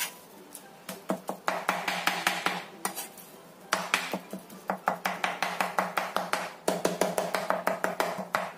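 Knife rapidly chopping raw chicken on a cutting board to mince it, about six quick knocks a second in runs with brief pauses.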